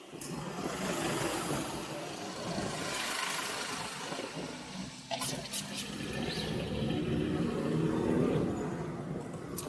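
Road traffic noise with a motor vehicle's engine running close by, loudest about eight seconds in, and a few sharp clicks about five seconds in.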